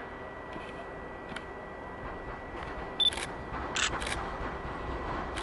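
Camera taking photos: a short high autofocus beep about three seconds in, then several quick shutter clicks in the second half, over steady background noise.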